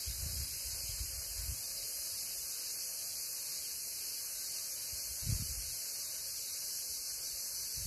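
Steady high-pitched hiss, with low rumbles of wind buffeting the microphone in the first second and a half and again briefly just after five seconds.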